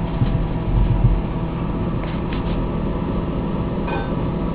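Microwave oven running with a steady low hum, heating a bag of microwave popcorn that has not yet started to pop.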